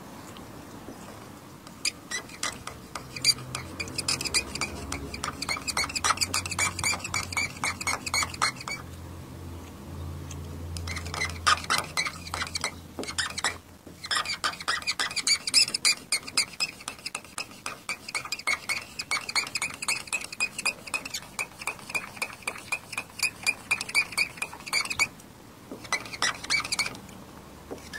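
Scratch-remover pen tip rubbed fast back and forth over car door paint: quick scratchy strokes, many a second, in long runs with short pauses around 9 and 25 seconds in.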